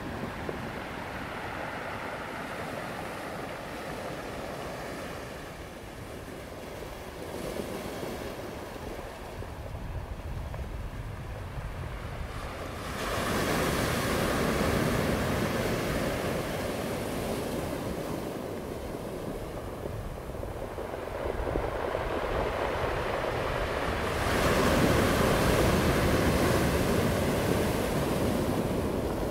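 Ocean waves breaking and washing up the shore in a steady wash of surf, swelling louder about halfway through and again near the end as bigger waves come in.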